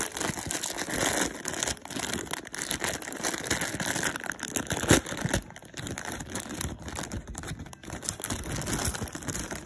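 Clear plastic bag crinkling and rustling as it is handled, a dense run of small crackles with one sharper crackle about halfway through. It is softer in the second half.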